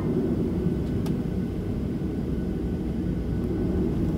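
Steady low rumble inside the cabin of a Boeing 737-700 taxiing, its CFM56-7B engines at idle thrust, with a single brief click about a second in.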